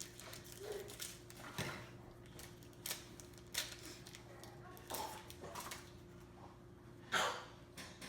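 A foil Pokémon trading-card booster pack being torn open and its cards handled: a series of short, irregular crinkles and rustles, the loudest near the end.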